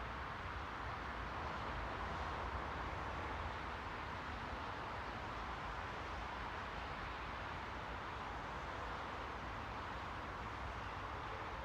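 Steady white noise: an even, unbroken hiss, strongest in the middle range, with no change in level.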